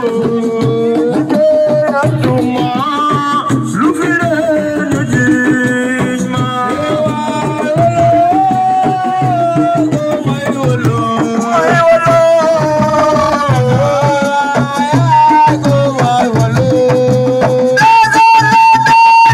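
Senegalese assiko band playing: a voice sings a long, gliding melodic line over steady hand drums and percussion.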